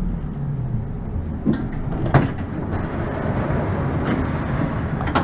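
Bombardier tram running on its rails, heard from inside the front of the car: a steady low rumble with a few sharp clicks and knocks, the loudest about two seconds in.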